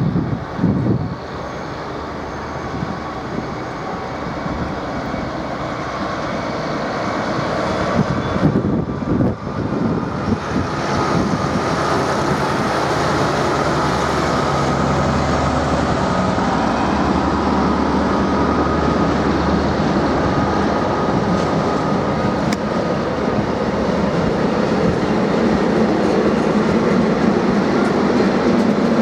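A train running along the track, its sound growing gradually louder, with a steady whine joining in about a third of the way through.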